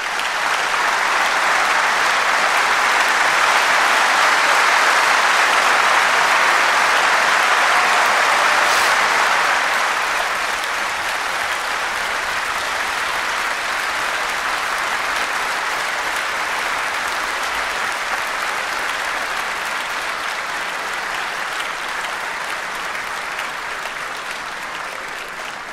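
A large audience in a big hall applauding: dense, even clapping, loudest over the first several seconds, then easing slightly about ten seconds in and carrying on steadily.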